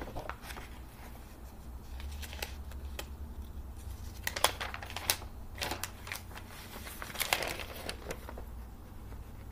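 Glossy magazine pages being handled and turned, rustling and crinkling in a string of sharp crackles. The crackles come thickest about four to five seconds in and again a little after seven seconds.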